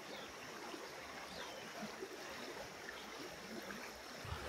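Shallow creek running over rocks: a faint, even rush of water.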